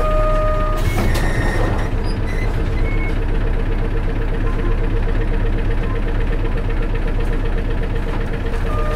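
Diesel engine of a 1996 Isuzu Cubic KC-LV280N city bus running steadily, heard from inside the bus. A short electronic beep sounds at the start and again near the end, a brief noisy rush comes about a second in, and a fast-pulsing electronic tone runs on from about two seconds in.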